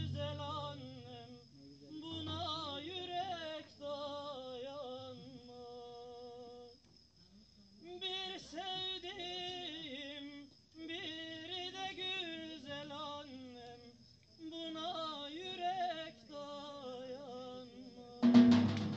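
A single voice singing an old Turkish folk song without accompaniment, in long phrases with wavering, ornamented pitch and short breaths between them. Near the end a davul, a large double-headed drum, comes in loudly with a fast beat.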